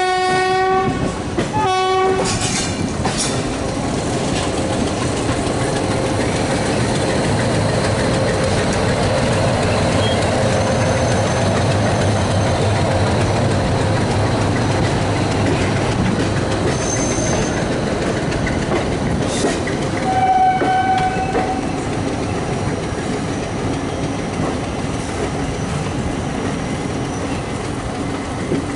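Passenger train rolling through the station with a steady rumble and wheels clattering over rail joints. A locomotive horn ends a long blast just under a second in and gives a short blast about two seconds in. A shorter, higher horn sounds about twenty seconds in.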